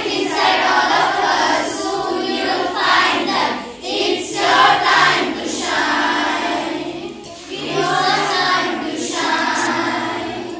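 A children's school choir singing a song together in unison, with brief breaks between phrases about four and seven seconds in.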